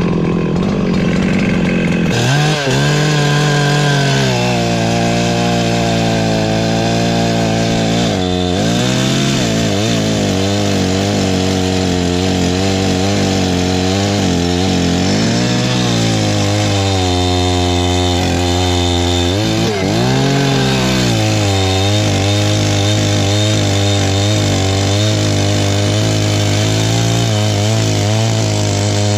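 Perla Barb 84cc two-stroke chainsaw running at high revs while cutting firewood. Its pitch sags and recovers several times as the chain bites into the wood, around two, eight, fifteen and twenty seconds in.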